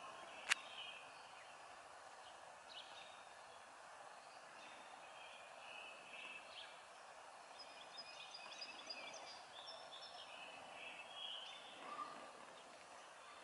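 Faint outdoor ambience with birds chirping at intervals, and a single sharp click about half a second in.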